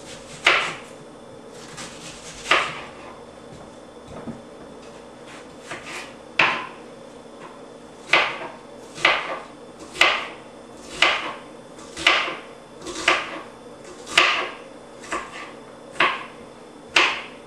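Kitchen knife chopping an onion on a cutting board: sharp knocks of the blade striking the board, a few scattered ones at first, then steady at about one a second.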